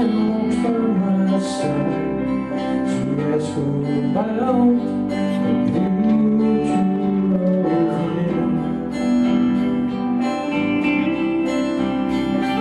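Background music: a song with strummed guitar and a singing voice.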